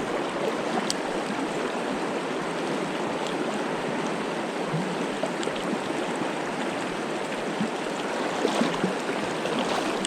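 Mountain stream rushing steadily, with a few faint ticks.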